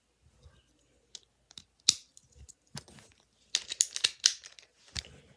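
Plastic Beyblade parts and packaging being handled: scattered sharp clicks and short rustles, with a quick run of clicks about three and a half seconds in.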